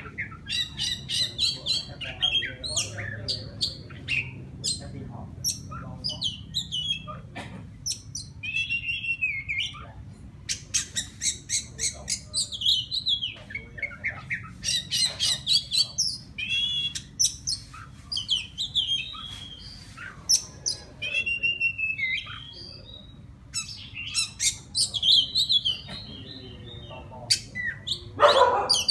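Oriental magpie-robin (chòe than) singing: bouts of varied whistled phrases mixed with sharp clicky notes, broken by short pauses. It is a wild-caught male's song calling to a female.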